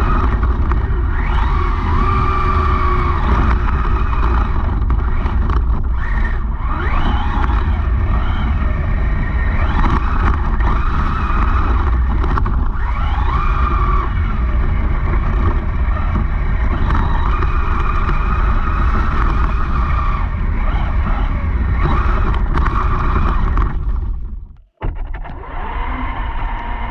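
Traxxas Raptor R RC truck's brushless electric motor and drivetrain whining, heard from a camera on the truck, the pitch rising and falling as the throttle is worked over a heavy low rumble. The sound cuts out briefly near the end and the whine then runs steadier.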